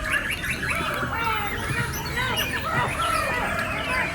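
A chorus of many caged songbirds, white-rumped shamas among them, singing and calling over one another in quick, overlapping rising and falling phrases.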